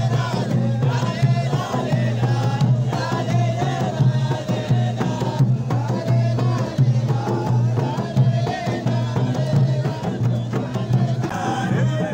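Omani folk music performed live: a group of men chanting together over large double-headed drums beaten in a steady rhythm.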